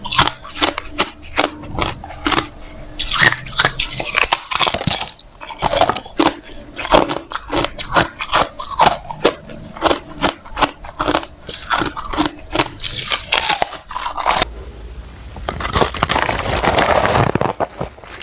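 Hard ice being bitten and chewed close to the microphone: a rapid run of sharp, loud crunches, several a second. Near the end the crunching gives way to a denser, continuous crackling for about three seconds.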